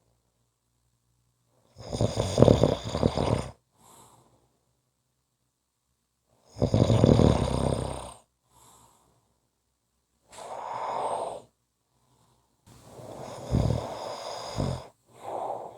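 A person snoring in slow, even breaths: three loud, pulsing snores about five seconds apart, with shorter, softer breaths between them.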